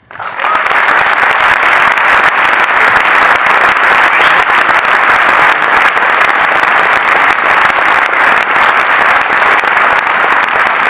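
A cinema audience applauding loudly and steadily, many hands clapping at once, breaking out right after a speaker's closing thanks.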